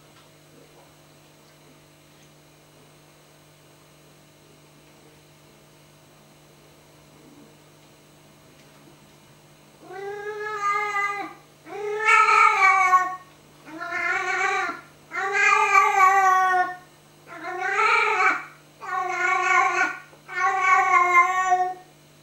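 Domestic cat meowing up at a moth flying overhead: a run of seven drawn-out, talk-like meows, each about a second long, starting about halfway through. Before that only a steady low hum is heard.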